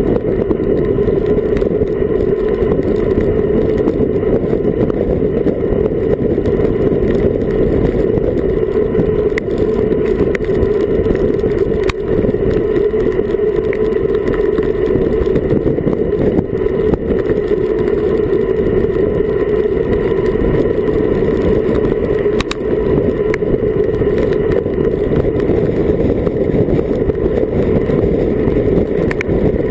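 Steady, loud wind rushing over an action camera's microphone on a bicycle descending at about 30–40 km/h, with a few faint ticks.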